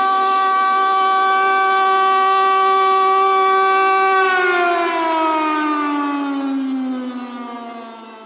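Tsunami warning siren holding a steady wail, then about four seconds in its pitch starts to fall and it fades away as it winds down.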